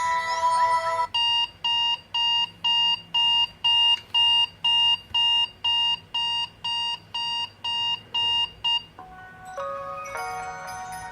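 HTC Desire 601 smartphone's built-in alarm-style tone playing through its speaker: an electronic beep repeating about three times a second for roughly eight seconds, after the tail of a short melodic tone. Near the end a different chiming melody begins.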